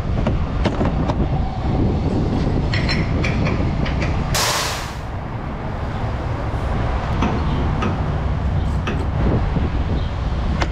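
Semi-truck diesel engine running steadily, with light rattles and clicks, and a short burst of hiss about four and a half seconds in.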